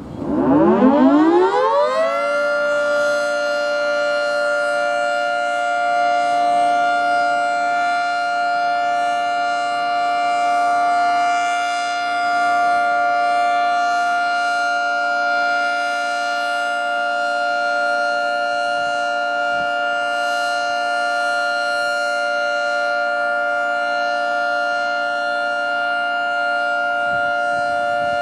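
Federal 3T22 three-tone outdoor warning siren winding up from a low pitch over about two seconds, then holding a steady, loud chord during its routine test.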